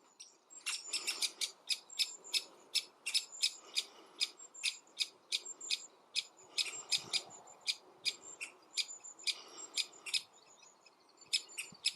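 Great spotted woodpecker giving a rapid series of short, sharp 'kik' calls, about three to four a second, with a brief gap near the end.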